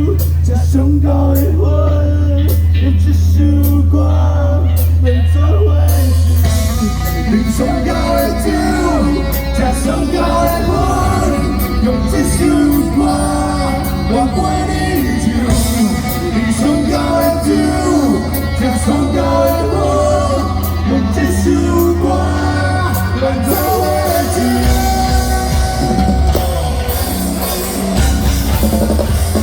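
Live rock band playing with a singer, over a heavy bass and regular drum and cymbal strikes.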